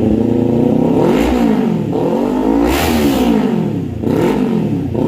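Kawasaki Z400's parallel-twin engine, fitted with an SC Project aftermarket exhaust, revved from idle three times in quick throttle blips. The highest rev comes in the middle of the three.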